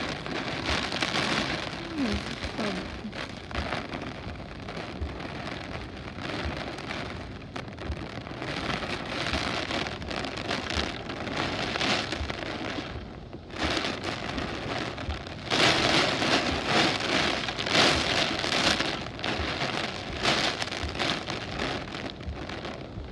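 Super Typhoon Odette's strong winds and heavy rain: a dense rushing noise that surges and eases in gusts. It dips briefly about halfway through, then comes back louder.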